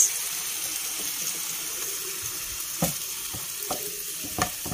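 Minced pork simmering in chicken broth in a pan, a steady bubbling sizzle. A spatula stirring knocks sharply against the pan about three seconds in and again just before the end.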